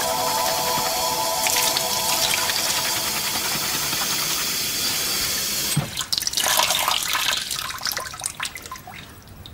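Kitchen tap running into a stainless steel sink while a coffee-stained cotton dress is rubbed under the stream. The water stops abruptly about six seconds in, followed by the wet fabric being squeezed and handled over the sink, fading out.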